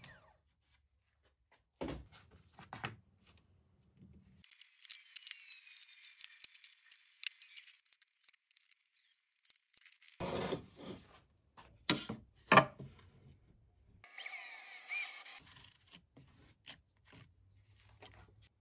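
Scattered sounds of hand work on plywood: a few sharp clicks and wooden knocks, the loudest a little past the middle, between stretches of light rubbing and scraping.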